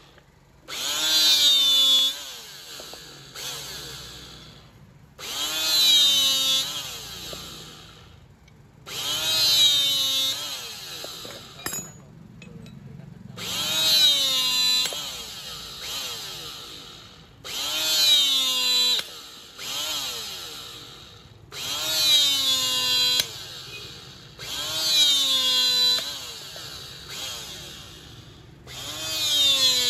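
A Korean 16 mm electric hydraulic rebar cutter runs through about eight cutting cycles, one every four seconds or so. Each cycle is a loud motor whine whose pitch dips and recovers while it works, then fades as the motor winds down.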